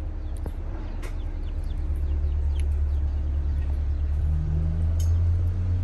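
Low engine rumble of a nearby motor vehicle, swelling from about two seconds in to its loudest near the end.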